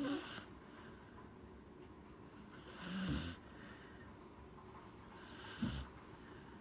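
Corgi snoring: three separate snores, one right at the start, one about three seconds in and one near the end, each a short low snore with a hiss of breath.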